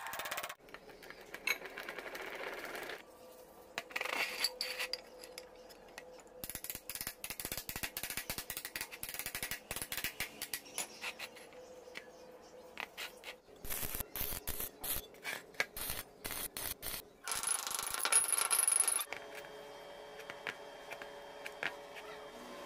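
Metalwork on steel parts: hammer blows on a steel strip bent around a jig, then clinks of steel pieces being handled. In the middle comes a long stretch of rapid, irregular clicking, and a short, louder high hiss follows near the end.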